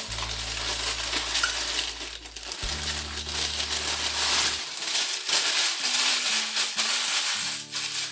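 Packaging being handled and unwrapped: a dense crinkling and rustling with small clicks, over background music with held low notes.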